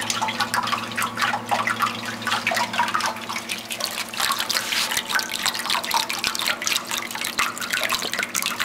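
Water sheeting down the glass panel of an indoor water wall fountain and splashing into its bottom reservoir: a steady patter of drips and splashes, with a steady low hum beneath.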